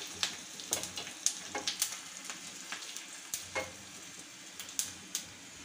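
Hot oil tempering sizzling in a small pan with mustard seeds, green chillies, curry leaves and sesame seeds, a steady hiss with scattered sharp clicks as the tempering is stirred.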